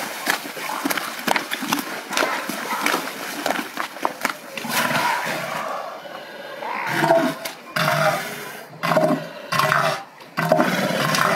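Two bull elephant seals fighting. First comes a scrappy scuffle of heavy bodies and grunts. Then, from about seven seconds in, the reared-up bulls trade loud, pulsing threat calls in bursts of about a second each with short gaps between.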